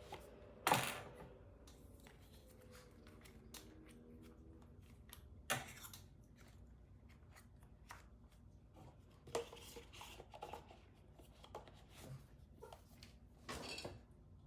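Quiet desk-work handling noises: light clicks, taps and short rustles as small objects are picked up and set down on a desk. A louder knock comes about a second in, and a few more follow at uneven gaps.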